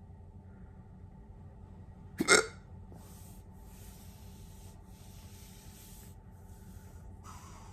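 One sharp hiccup about two seconds in, followed by a soft hissing noise that comes and goes in short stretches.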